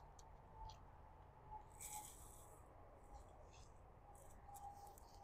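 Near silence: faint outdoor ambience with a few soft ticks and a brief faint rustle about two seconds in.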